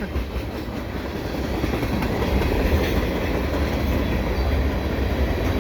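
Cars of a CN mixed freight train rolling past: a steady rumble of steel wheels on the rails, growing a little louder over the first couple of seconds.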